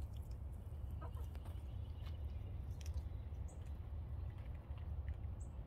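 Backyard hens clucking softly now and then over a steady low rumble.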